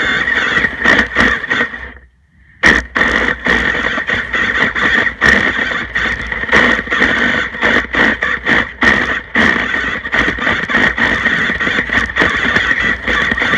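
RC snowmobile's motor and geared drive running under load, a steady high-pitched whine with a constant rattling crackle as the track churns through snow. The whine cuts out for about half a second about two seconds in, then picks up again.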